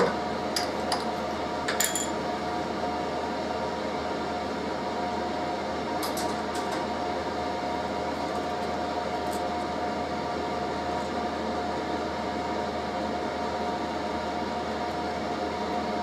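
Steady hum of a workshop heater running full blast, with a few light metallic clinks in the first two seconds and again about six seconds in as a drill bit is handled at the drill chuck and a tin can.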